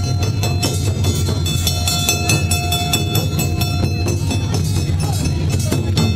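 Awa Odori street band playing: large shoulder-slung taiko drums beaten with sticks in a continuous driving rhythm, with a dense patter of rapid sharp strikes on top.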